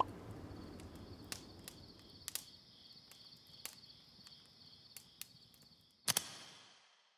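Faint crickets trilling steadily in a high pitch over a low hum that slowly fades, with scattered soft clicks; one sharp click about six seconds in.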